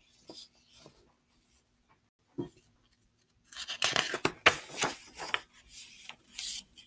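Paper rustling and brushing as a large picture book is handled and a page is turned, loud and busy from about three and a half seconds in after a few faint rustles and a single click.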